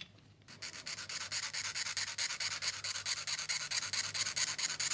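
A hand sanding stick rubbed in fast, even back-and-forth strokes on a small clear plastic model-kit part, cleaning up a sprue gate. The strokes start about half a second in.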